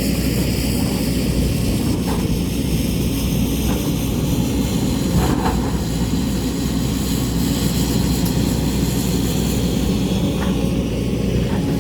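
JCB excavator's diesel engine running steadily under working load, with a few faint clicks.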